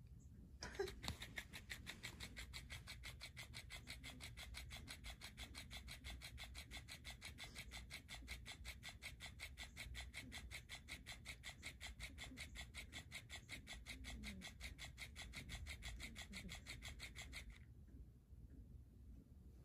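Motorised flopping-fish cat toy running: its motor drives the plush tail in a fast, even ticking of about five beats a second. It starts about a second in and cuts off suddenly near the end.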